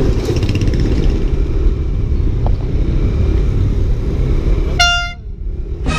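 Steady low rumble of a vehicle, then about five seconds in a short, single-pitched horn blast that cuts off abruptly.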